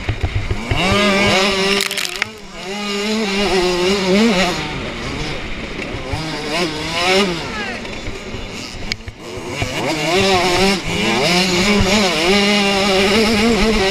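KTM 65cc two-stroke motocross bike engine heard from on board, its pitch climbing and falling again and again as the throttle opens and closes through the gears. There are brief lulls about two seconds in and again near nine seconds.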